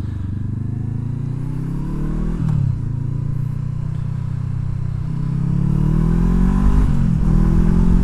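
Honda CBR500R's parallel-twin engine and exhaust pulling away under acceleration. The revs climb, drop at an upshift about two and a half seconds in, then climb again and drop at a second upshift near the end.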